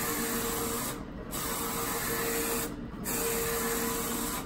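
Roland FJ-50 wide-format inkjet printer printing, its printhead carriage sweeping across the media with a steady whirring hiss. The sound dips in short lulls about every 1.7 seconds as each pass ends and the carriage turns back, twice here.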